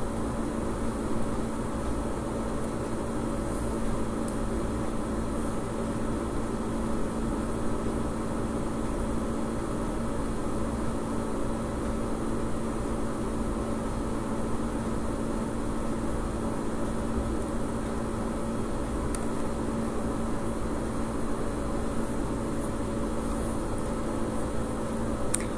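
Steady background hum with a few constant tones over low noise, and faint high ticks now and then.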